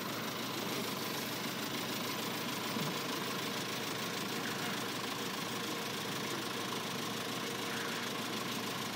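Steady hum of road vehicle engines idling while held at the closed crossing, with no distinct events.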